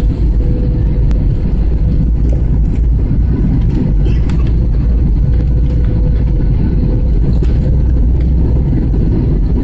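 Airbus A320 cabin noise on approach: a steady roar of engines and airflow with a heavy low rumble and a faint steady hum running through it.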